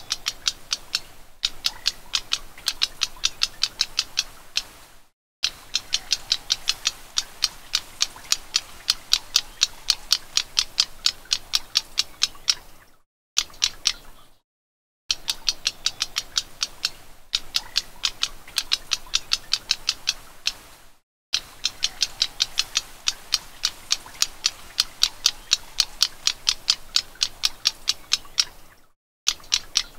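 Black-browed reed warbler calling: runs of dry, evenly repeated ticking notes, several a second, in bouts of a few seconds broken by abrupt short gaps.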